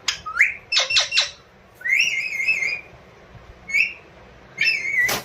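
Pet parrot squawking and calling: a few sharp calls about a second in, a wavering, warbling call around two seconds, more short calls, and a harsh screech at the end.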